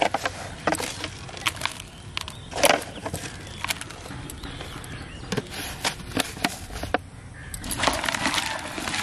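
Uncooked rice grains handled in a plastic tub: scattered clicks and light knocks of grains and fingers against the plastic, then from about seven and a half seconds in a continuous rustle as the rice is stirred by hand.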